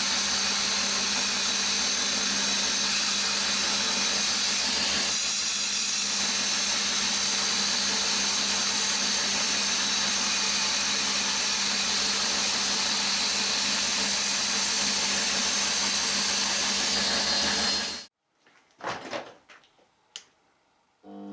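Shop-built 2x72 belt grinder, driven by a treadmill motor through a speed controller, running steadily with a constant hum and belt noise. It cuts off suddenly near the end, followed by a few faint knocks.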